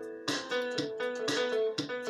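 Instrumental music of quick plucked notes, a new note struck every quarter to half second and ringing on.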